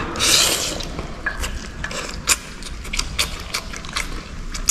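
Close-up eating: a short noisy rush about a second in, then irregular sharp clicks and crunches from chewing crunchy beef cartilage in braised noodles.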